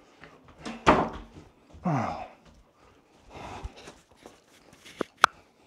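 A man breathing hard while jogging on the spot, with voiced exhalations about once a second, each dropping in pitch. Near the end come two sharp clicks from the clip-on microphone on his chest being handled.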